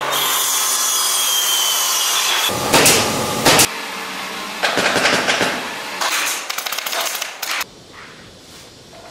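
Workshop tool sounds in quick succession: a table saw cutting through a wooden strip with a steady whir for the first couple of seconds, then louder bangs and knocks, and a quick rattling run of taps about seven seconds in.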